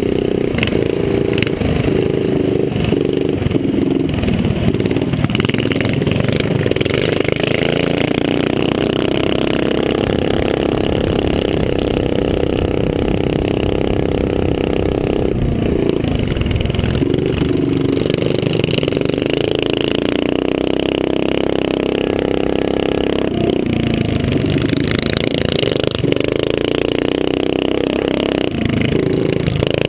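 A small motorbike engine running hard under load, heard close from the rider's helmet, with its pitch dropping and climbing again several times as the throttle is eased and reopened. Wind noise on the microphone runs under it.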